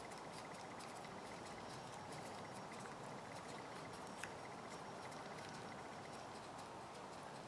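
Faint, sparse clicks of a small screwdriver turning a screw into a Yamaha Warrior 350 carburetor body, over a steady faint hiss.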